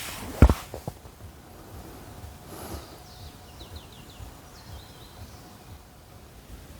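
A sharp knock about half a second in, followed by a couple of small clicks, then quiet mountain outdoor ambience with a few faint bird chirps.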